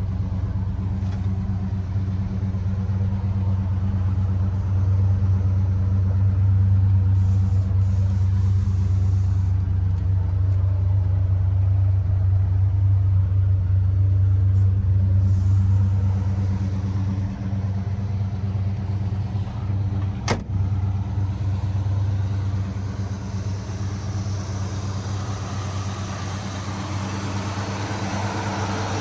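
1974 Chevy Nova's engine running steadily with a low, even hum, with a single sharp click about twenty seconds in.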